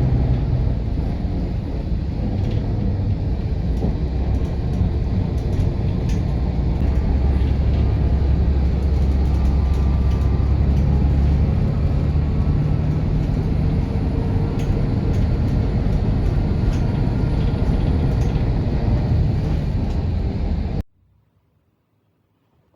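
A motor vehicle running steadily, with a dense low engine and road rumble and some faint rattles. The sound cuts off suddenly near the end.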